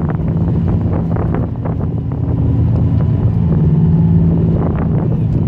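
Crew boat's engines running with a steady low hum, wind buffeting the microphone, and scattered short knocks.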